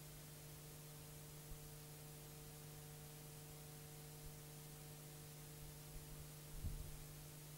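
Near silence: steady hiss and a low electrical hum in the recording, with one faint low thump near the end.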